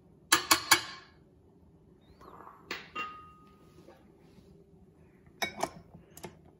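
Sharp clinks of a small glass bowl knocking against the rim of a stainless steel stand-mixer bowl, three in quick succession about half a second in, then scattered knocks with a brief ringing tone near the middle. Near the end come a few clicks as the flat beater is fitted onto the mixer.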